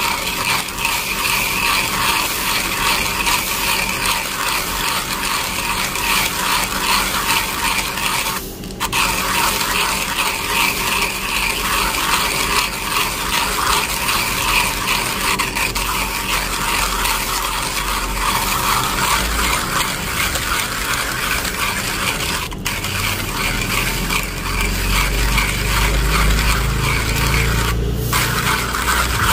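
1Zpresso hand coffee grinder crushing whole beans in its burrs as the crank is turned: a steady, dense crunching grind, the beans crisp and crunchy from the roast. The grinding breaks off three times for an instant, and a low rumble joins in over the last few seconds.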